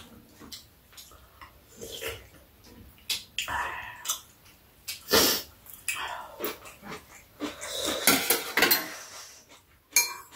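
Two people eating noodle and soybean-paste soup: repeated slurps and chewing, with spoons and chopsticks clinking against bowls. There is a sharp click near the end.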